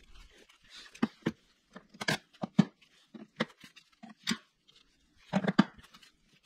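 A ratchet and sockets clicking and clattering in a plastic socket-set case as the tools are handled: a run of irregular sharp knocks, with a quick cluster of clatter about five and a half seconds in.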